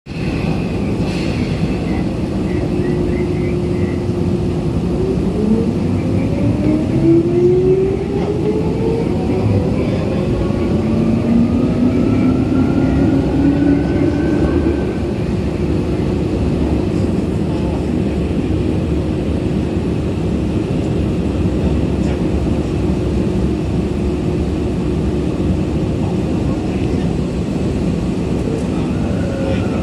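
Tokyu 8500 series electric train running in a subway tunnel, heard from inside the car: a loud, steady rumble of wheels on rail, with the motor whine rising in pitch from about five to fifteen seconds in as the train accelerates, then holding a steady tone.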